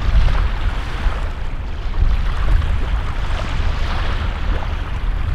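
Wind buffeting the microphone, a heavy, uneven low rumble, over a steady hiss of wind and water on the shore.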